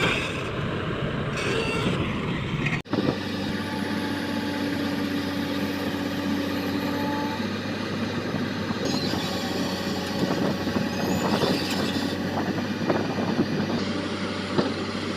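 Heavy diesel construction machinery running steadily, an engine hum held at a constant note. It breaks off abruptly for an instant about three seconds in, then carries on.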